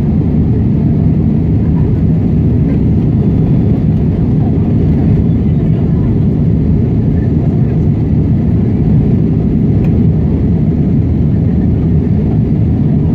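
Airbus A320 cabin noise during the climb after takeoff: the steady low roar of the jet engines and rushing air, heard inside the cabin.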